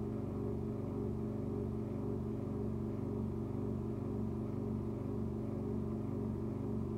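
Steady low mechanical hum with a faint regular pulsing, like a small motor or fan running.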